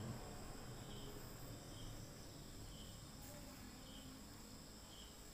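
Faint insects chirping, a short high chirp repeating about once a second over a steady high-pitched drone.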